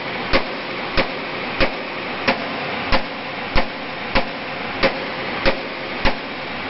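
Sledgehammer striking the steel flange of a truck chassis rail, about ten evenly paced blows roughly 0.6 seconds apart, working the bent frame back into shape. A steady rushing noise runs underneath.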